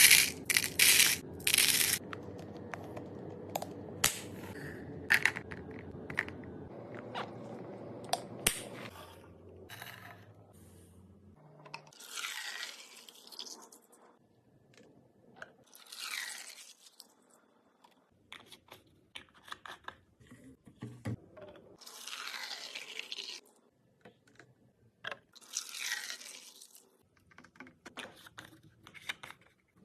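Drinks and snacks being unpacked and put into a mini fridge: plastic packaging rustling and tearing, with many clicks and knocks as items are set down. Four longer swishing sweeps come later, and a low hum runs under the first third.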